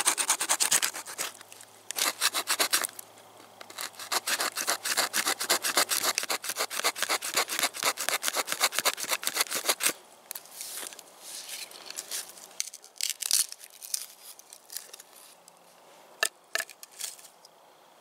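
Small folding saw blade of a multi-tool, with offset teeth, being pushed and pulled through a split log in quick back-and-forth strokes. The saw is not very sharp. About ten seconds in, the strokes become lighter and more spaced out.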